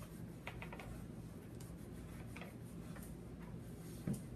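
Chalk pastel stick tapping and stroking on paper: a few faint, irregular ticks, with a quick cluster about half a second in.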